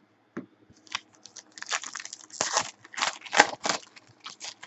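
Foil wrapper of a Panini Certified basketball card pack being torn open and crinkled by hand, a quick series of tearing and rustling strokes that is loudest just past the middle.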